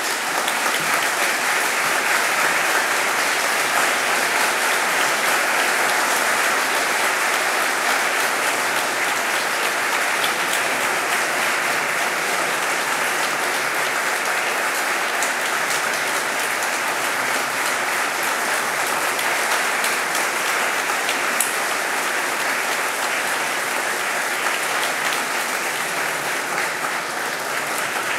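A large audience applauding: dense, steady clapping that keeps up at a constant level without letting up.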